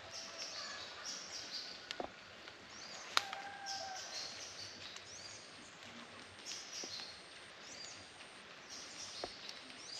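Birds chirping and calling in short, repeated high notes, with a few brief whistled tones. Two sharp clicks come about two and three seconds in.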